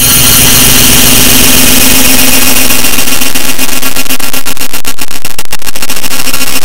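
Harsh, heavily distorted wall of noise at full level, made of many copies of one sound clip stacked on top of each other, with a steady buzzing tone running through it.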